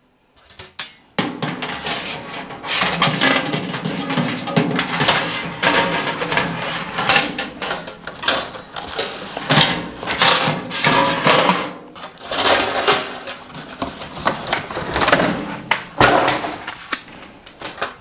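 Background music, over the light clatter of metal baking pans and a wire rack being handled and slid into a toaster oven. It starts about a second in, after a moment of near silence.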